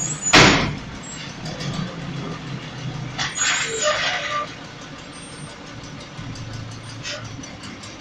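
Garbage trucks' diesel engines running with a steady low rumble. A short, loud burst of noise comes about half a second in, and a second, rougher stretch of noise follows around three to four seconds in.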